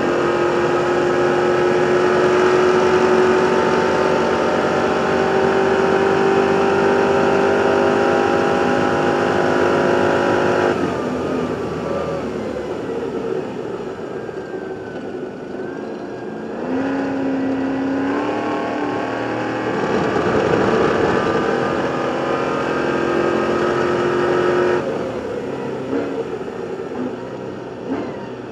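Stadium Super Truck's V8 racing engine, heard from the truck's roof, held at high revs at full throttle. It backs off sharply about ten seconds in, then its pitch steps up twice as it picks up again, and it drops once more near the end.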